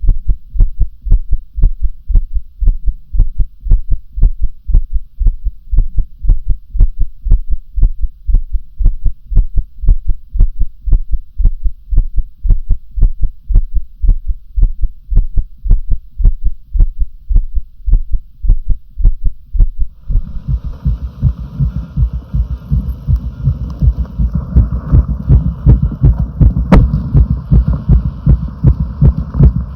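Human heartbeat recorded close up: a steady, regular train of low beats. About twenty seconds in, the recording changes and the beats sit over a louder, noisy hiss.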